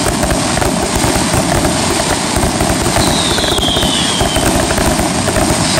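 Fireworks going off in a dense, continuous barrage of bangs and crackling, with a high whistle falling in pitch about three seconds in.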